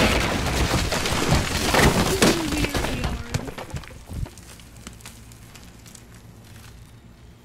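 The end of a pop song: a loud, noisy final crash dies away over about four seconds, leaving a faint steady low hum.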